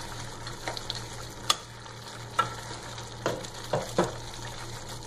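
Thick masala paste sizzling in a steel pot on high heat while a wooden spatula stirs it. About six sharp scrapes and knocks of the spatula against the pot come at irregular intervals over the steady frying hiss.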